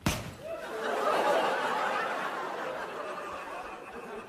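A sharp smack at the very start, then a theatre audience laughing, swelling over the first second and slowly dying away.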